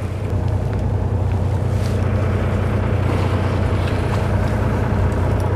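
Fishing boat's engine running steadily, a low, even hum.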